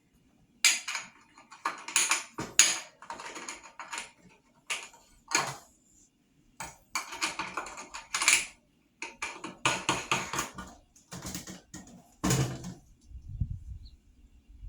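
Irregular bursts of scrubbing and scraping, with light clicks and clatters of small hard parts being handled during cleaning.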